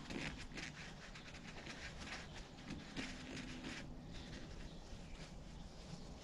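Paper towel rubbing and scrubbing inside a motorcycle's hydraulic clutch fluid reservoir, a run of faint, irregular scratchy strokes as old fluid residue is wiped out.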